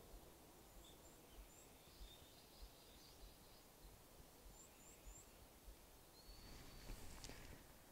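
Near silence: faint outdoor ambience with a low rumble and a few faint, high, short bird chirps in small runs.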